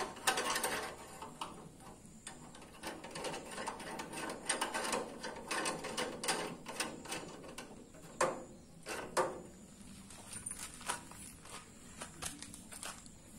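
Irregular metal clinks, taps and scraping as a steel pipe with a nut is handled and slid into the tube holder of a welded steel stove stand, with a few louder knocks near the middle.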